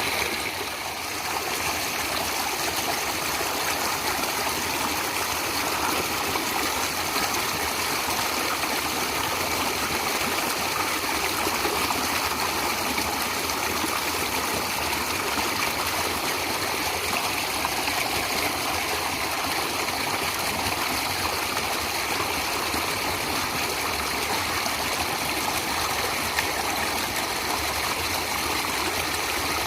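A stream of water flowing steadily, with a brief slight dip in level about a second in.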